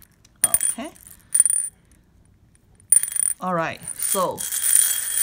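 Glass beads rattling and clinking against the inside of a small ceramic bowl as the bowl is moved: two short clatters in the first two seconds, then a longer run of rolling and clinking from about three seconds in.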